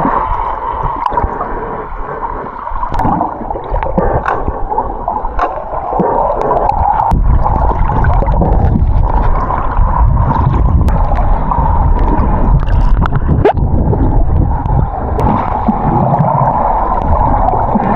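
Muffled water gurgling and sloshing, as heard through an action camera underwater while snorkelling, with scattered clicks; it grows louder about six seconds in.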